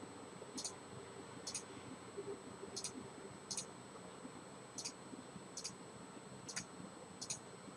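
Faint clicks of a computer mouse button: eight single clicks, spaced roughly a second apart.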